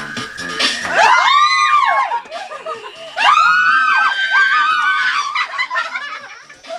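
Two long, high-pitched screams from a group of women, one about a second in and a second one about three seconds in, with giggling and laughter after them. The beat of the dance music cuts off just before the first scream.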